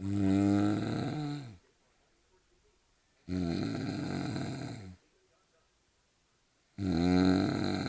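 A man snoring loudly: three long snores about three and a half seconds apart, each a rasping, pitched sound that falls in pitch toward its end.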